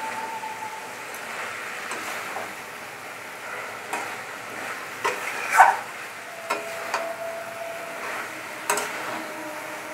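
Amodi fish pieces sizzling in onion-garlic masala in a metal kadai as a spatula stirs them, with sharp knocks and scrapes of the spatula against the pan, the loudest about halfway through.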